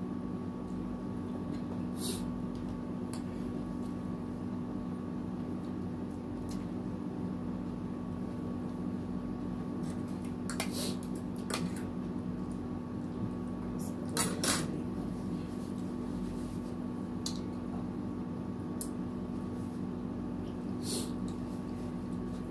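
Spoon and fork clinking and scraping against a bowl and plate during eating, in scattered clicks with two busier clusters in the middle. A steady hum runs underneath.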